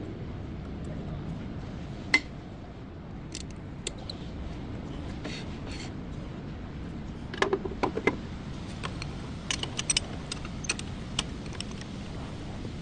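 Light metallic clinks and taps over a steady low hum: one sharp clink about two seconds in, then two short clusters of rapid clinks in the second half.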